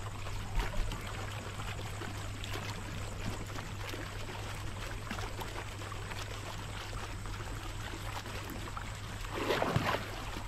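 Water sloshing and splashing around an angler standing in the lagoon as he releases a large Jullien's golden carp, with a louder splash about nine and a half seconds in as the fish kicks away. A steady low hum runs underneath.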